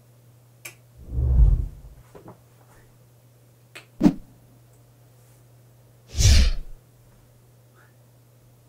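Three short separate sounds over a low steady hum: a heavy low thump about a second in, a sharp click around four seconds, and a loud whooshing burst just after six seconds.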